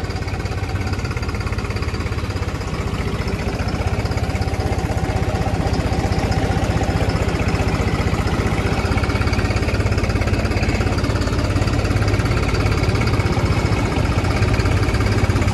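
New Holland 3630 tractor's three-cylinder diesel engine running steadily under the driver's seat as the tractor pulls away and rolls slowly onto the road.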